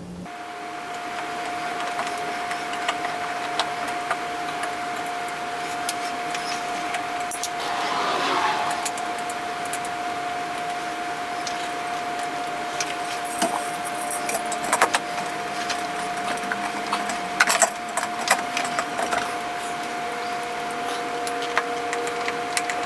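Sped-up work sounds of a screwdriver and screws on a ceiling fan's metal mounting bracket and canopy: scattered small metallic clicks and taps, more frequent in the second half, over a steady high-pitched tone.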